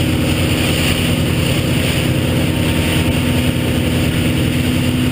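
Motorboat engine running steadily under way, with a steady hiss over it.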